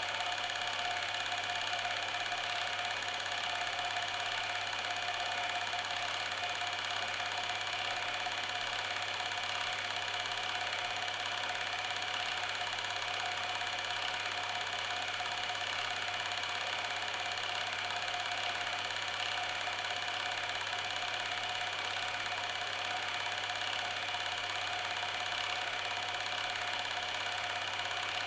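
Steady mechanical whirring hum with constant hiss, like a small motor running evenly; it does not change at all.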